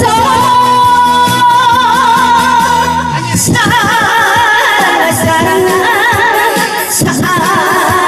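A woman singing a Korean trot song into a microphone, with wide vibrato, over recorded accompaniment played through a PA speaker. She holds one long note for the first three seconds; then the melody moves higher and a beat comes in.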